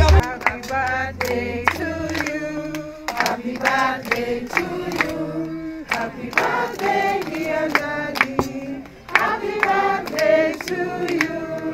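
A choir singing, the voices holding long notes in short phrases.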